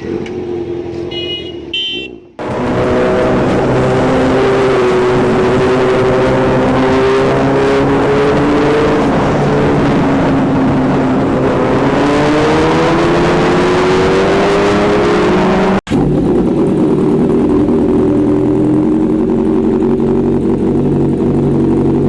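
Inline-four superbike engine running hard at highway speed, its pitch slowly rising and falling with the throttle over a steady rush of wind. The sound cuts off abruptly twice, about two seconds in and near the end.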